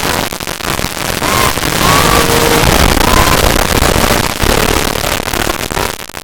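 A few short goose honks, faint under a loud, continuous rushing and crackling noise.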